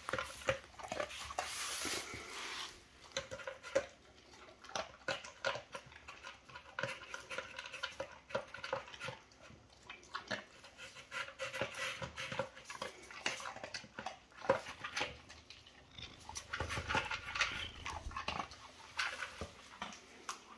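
A Labrador eating dry kibble from a plastic slow feeder bowl: irregular crunching and quick clicks of kibble and muzzle against the bowl's plastic blades.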